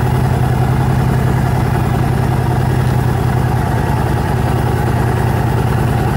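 Yamaha Road Star motorcycle's V-twin engine running steadily at an even speed, with a constant low, pulsing note and no revving.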